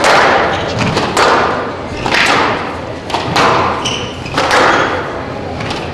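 A squash rally: the ball cracks off racquets and court walls about once a second, each hit echoing around the court. A short rubber-soled shoe squeak on the court floor comes about four seconds in.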